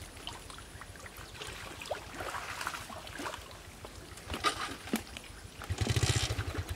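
Muddy pond water splashing and dripping as a plastic basin is scooped through the shallows and lifted to drain, with scattered small splashes. Near the end a brief loud low rumble with a rapid throb stands out.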